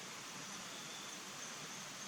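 Steady outdoor background hiss with a faint, steady high-pitched tone running through it; no distinct call or knock stands out.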